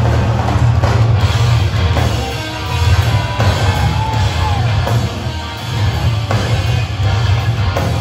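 Live metalcore band playing loud distorted electric guitars and drums through a PA, heard from within the crowd, with a heavy, boomy low end.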